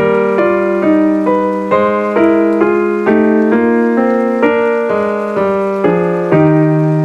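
Piano music: a melody of notes struck about twice a second over sustained lower chords.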